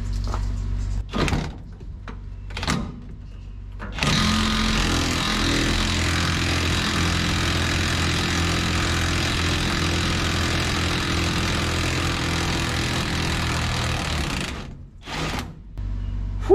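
Cordless impact wrench hammering steadily for about ten seconds on a rusted cab mounting bolt, from about four seconds in, then stopping abruptly. Two brief knocks come before it.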